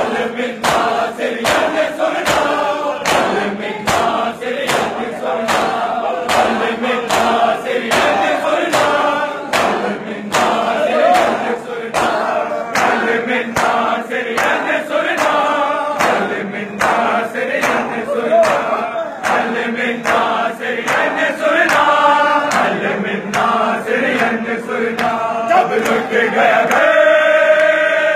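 A large crowd of men chanting a slow noha in unison while beating their chests with both hands in matam, the slaps landing together about twice a second. Near the end the beating stops under a long, held sung line.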